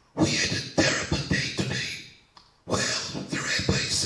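A man talking into a handheld microphone held close to his mouth, with strong breath and hiss on the sound. There are two stretches of talk, separated by a brief pause a little over two seconds in.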